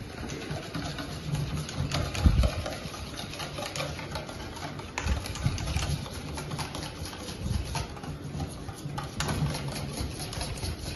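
Wire balloon whisk beating a liquid egg-and-cream custard mixture by hand in a stainless steel bowl: a fast, steady rattle of the wires against the bowl, with a few heavier knocks, the loudest about two seconds in.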